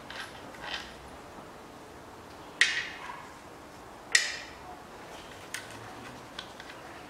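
Two sharp metallic clinks about a second and a half apart, each ringing briefly, with a few fainter ticks around them: metal tools or parts being knocked and set down during engine assembly.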